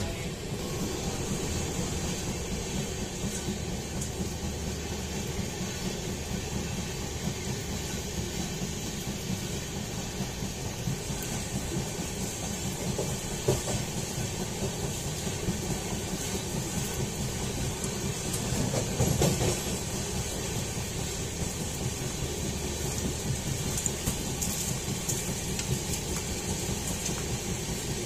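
Running noise of a moving train heard from aboard: a steady rumble of wheels on the track, with a sharp knock about halfway through and a short louder clatter about two-thirds of the way in.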